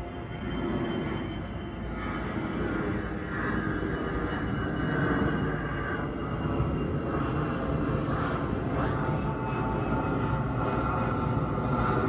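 Distant engine drone, steady and slowly growing louder.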